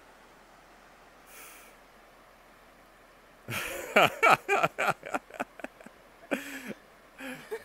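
A few seconds of low background, then a man laughing: a burst of short ha-ha pulses, each falling in pitch, about halfway in, trailing off into a couple of softer chuckles.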